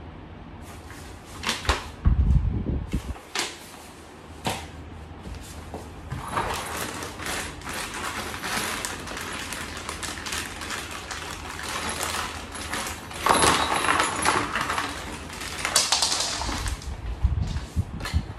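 Someone handling flat-pack shelf parts and packaging: a few sharp clicks and knocks with a low thump in the first seconds, then a long stretch of crinkly rustling with louder bursts, and another low thump near the end.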